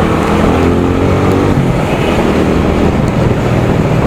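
TVS Apache RTR 200's single-cylinder engine running under way, its pitch rising as the bike accelerates through the first couple of seconds and then holding steady, with wind rushing over the microphone.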